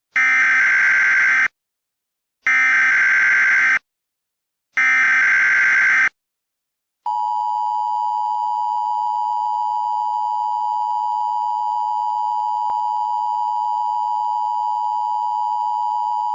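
Emergency Alert System data header: three short bursts of warbling digital screech, each about a second long with short gaps between them. About seven seconds in, the steady two-tone EAS attention signal starts and holds unchanged.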